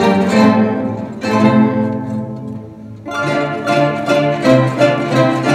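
Paraguayan harp music: quickly plucked strings ringing over a bass line, easing off briefly and starting again about three seconds in.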